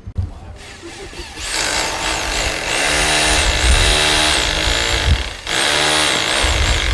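A loud small motor or power tool running, its pitch rising and falling. It starts about one and a half seconds in, cuts out briefly near five and a half seconds, then starts again.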